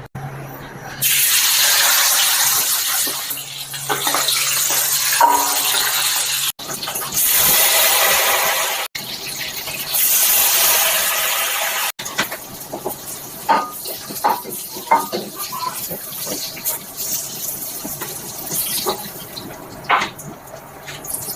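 Water running, in three stretches of a few seconds each that cut off abruptly, followed by scattered light clicks and knocks.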